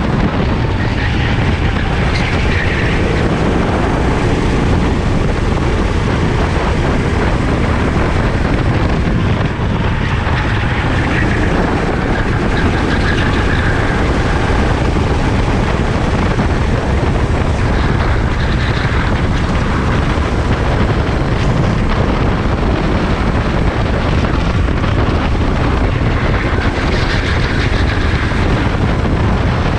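Sodi rental kart's engine running hard at racing speed, heard onboard from close by; a loud, steady drone whose pitch rises and falls a few times as the kart accelerates out of corners.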